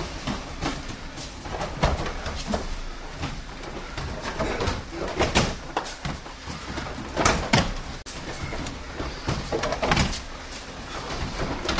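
Irregular thuds and slaps of bodies rolling and landing on foam grappling mats, with a pair of louder thumps about two-thirds through.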